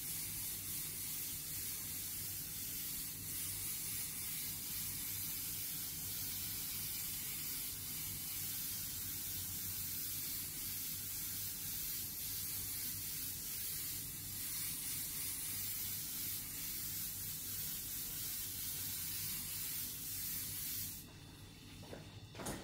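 Airbrush spraying paint with the regulator set to 15 psi: a steady airy hiss that cuts off near the end.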